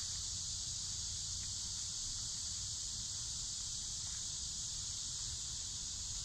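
Steady, high-pitched insect chorus droning without a break, with a faint low rumble underneath.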